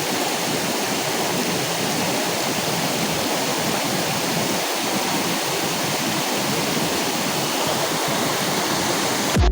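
Waterfall: a steady, even rush of falling water that cuts off suddenly at the very end.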